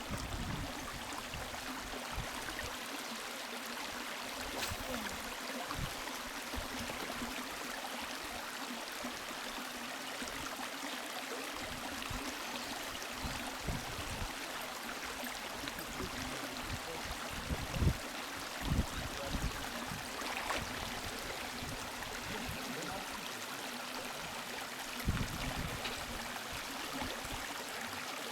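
River water rushing steadily, with a few brief low thumps, the loudest about two-thirds of the way through.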